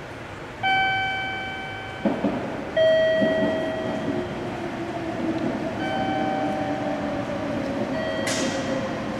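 Meitetsu train approaching the station platform, a low rumble building from about two seconds in. Over it come three ringing tones, each fading away over a second or two, and a short falling hiss sounds near the end.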